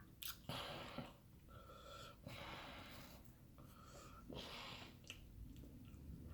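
Faint breathing and mouth noises of someone chewing food close to the microphone, with a few small clicks.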